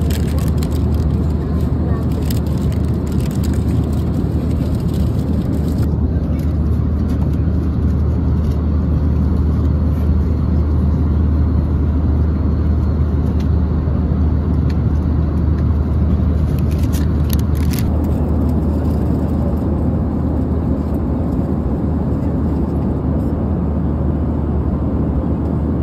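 Steady low rumble of a vehicle heard from inside its cabin, with a few brief clicks near the start and again later on.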